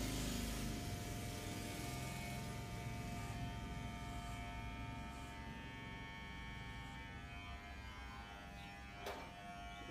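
Corded electric hair clippers running with a steady buzzing hum while cutting hair close to the scalp. There is a brief click about nine seconds in.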